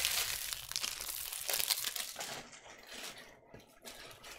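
Plastic trading-card packaging crinkling and tearing as it is opened by hand. The crackling is loudest in the first two seconds and dies away over the last second.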